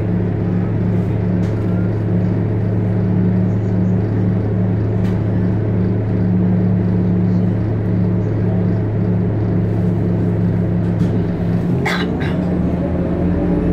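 Steady low mechanical hum with two constant droning tones under a noisy haze; the lower tone stops about eleven seconds in, and a short sharp click follows soon after.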